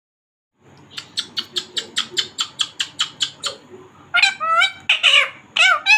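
Indian ringneck parakeet making a quick series of about a dozen short clicking chirps, about five a second, then several loud warbling calls that slide up and down in pitch: a talking parrot's chatter.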